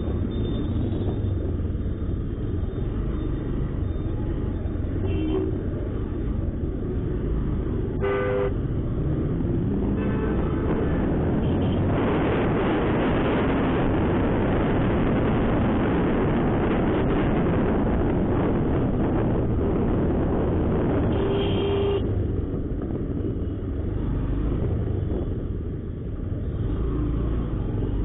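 Ride on a Honda SP125 motorcycle through city traffic: steady wind rush on the microphone over the running engine, the rush growing louder through the middle as the bike speeds up, with a brief rise in engine pitch just before. Short vehicle horn beeps sound three times, the loudest about eight seconds in.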